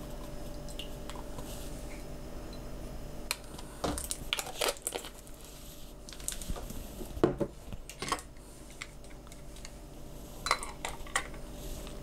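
Small glass bottles and shot glasses clinking and knocking as they are handled and set down on a table, in three short clusters of clicks. A steady low hum runs underneath.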